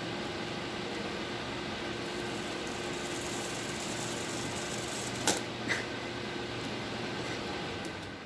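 Electric desk fan blowing steadily, a broad whoosh with a low hum and a faint steady tone. Two light clicks come about five seconds in. Near the end the fan noise fades as the fan is switched off.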